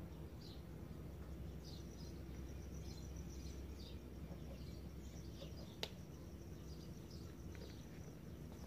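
Faint background ambience: small birds chirping in short, scattered calls over a low steady hum, with a thin steady high tone and a single sharp click about six seconds in.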